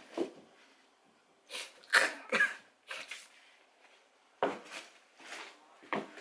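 A man making short, breathy vocal sounds close to the microphone, a handful of separate bursts with the loudest about two seconds in.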